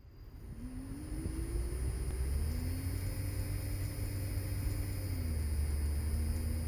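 AC servo motor on a Panasonic servo drive running on test: a pitched whine rises over about a second as it speeds up, holds steady, then steps down to a lower pitch near the end, over a strong low hum.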